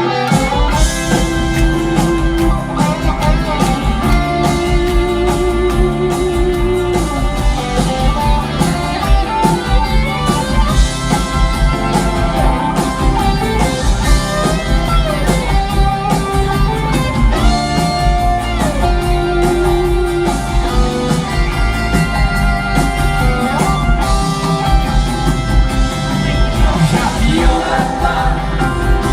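Rock band playing an instrumental passage: a lead melody that bends and wavers, over guitar, bass and a steady drum beat.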